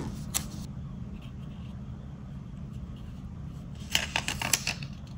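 Paper sticker sheets being handled: a light tap about half a second in, then a brief cluster of rustles and clicks near the end, over a steady low hum.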